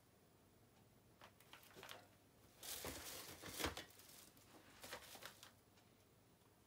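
Plastic packaging crinkling as an item is handled. There are light rustles about a second in, a louder crackly burst around three to four seconds in, and a few more rustles after.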